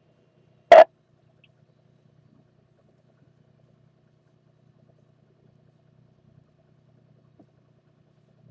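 Amateur FM radio's squelch tail: one short burst of static, under a second in, as a station unkeys on the repeater. Afterwards only a faint low hum.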